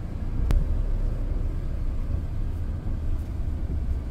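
Motorhome engine and tyres making a steady low rumble inside the cab as it drives slowly across a wet car park, with a single sharp click about half a second in.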